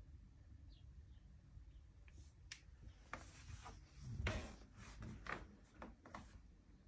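Faint rubbing and scuffing handling noise as a phone camera is moved, with a soft thump about four seconds in.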